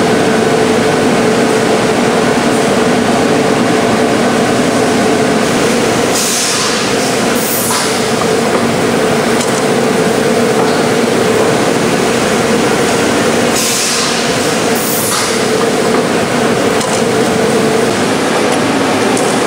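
Form-fill-seal packaging machinery running: a steady mechanical drone with a constant hum, broken by short hisses, two close together about six seconds in and two more about fourteen seconds in.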